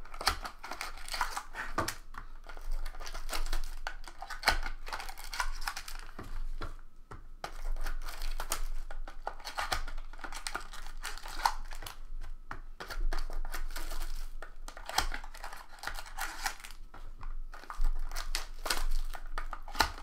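Crinkling and tearing of the plastic wrapping on a box of trading cards as it is being opened: irregular crackles and rustles with short tearing sounds.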